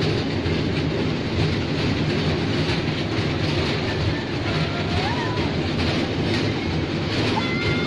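A children's amusement-park ride train running, heard from inside its carriage: a steady rumble with a light, regular clatter and rattle of the moving car.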